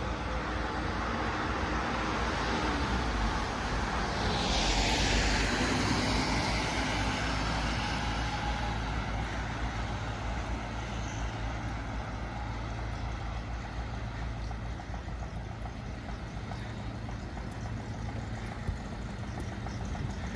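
Street traffic: a steady low engine hum with the hiss of a vehicle passing, loudest about five seconds in and then fading.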